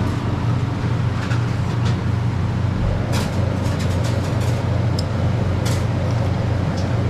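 Restaurant ambience: a steady low drone with a few scattered light clicks, as of utensils against a ramen bowl.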